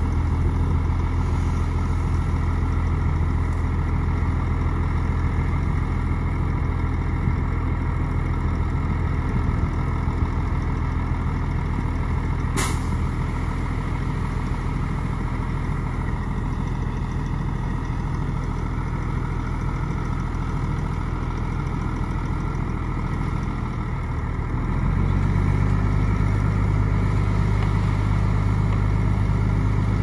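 Diesel engine of heavy earthmoving machinery running steadily, its note stepping up and getting a little louder about 25 seconds in. A single sharp click sounds about halfway through.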